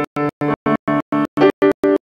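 Grand piano being played in a quick, evenly paced run of notes, about six or seven a second.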